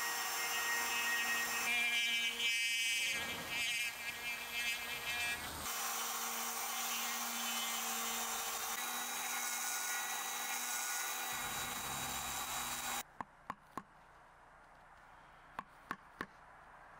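Flexible-shaft rotary carving tool whining at high speed as its bit grinds detail into wood, the pitch shifting as it bears on the cut. It stops about 13 seconds in, leaving a few sharp clicks.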